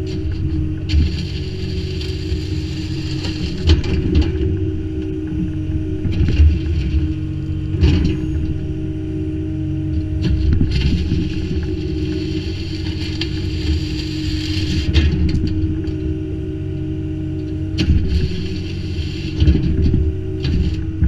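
Kubota U25-3 mini excavator's diesel engine and hydraulics running steadily under load while its grading bucket drags and scrapes through Type 1 crushed stone, with a few sharp clunks from the bucket and stone.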